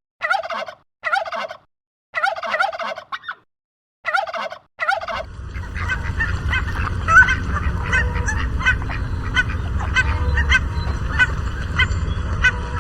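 Domestic turkey gobbling, several short rattling gobbles in quick succession. About five seconds in, this gives way to a steady noisy background dotted with many short sharp calls.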